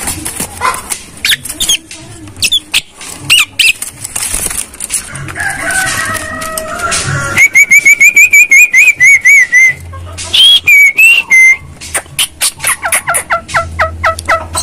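Javan myna (jalak kebo) calling: a varied string of whistles and harsh notes, with a fast run of about nine repeated whistled notes about halfway through, then a few falling whistles and a quick rattle of short clipped notes near the end.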